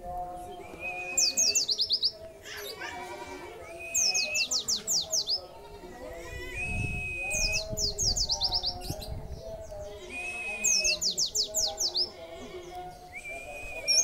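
A white-eye (pleci) sings the same short phrase over and over, about every three seconds. Each phrase is a brief steady high whistle followed by a fast run of sharp, falling high notes.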